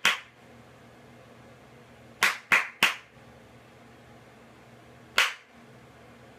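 Hand claps used to trigger a microphone clap detector: one right at the start, a quick run of three about two seconds in, then a single clap about five seconds in.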